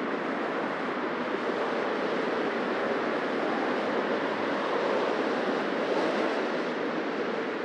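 Dense city street traffic: a steady wash of cars passing by, swelling slightly a little past halfway.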